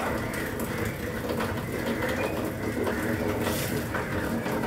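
Steady mechanical hum with a low drone, overlaid by scattered light knocks and clatter.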